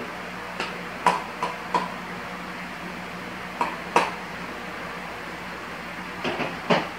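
Scattered light clicks and knocks from handling a balance-bike frame while plastic headset cups are pressed into its head tube by hand. A louder knock comes near the end as the frame is laid on a table. A faint steady hum sits underneath.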